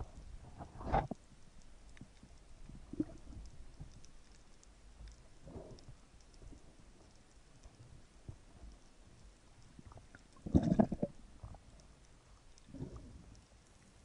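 Underwater sound picked up by a diver's action camera: a low steady rumble with a few short muffled gurgles of water and bubbles, the loudest about ten and a half seconds in, and faint scattered ticks.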